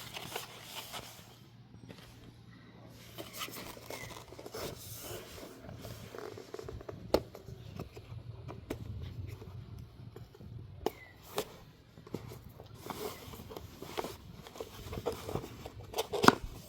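Hands handling and rustling the packaging of a new DJI camera box, with a few sharp clicks.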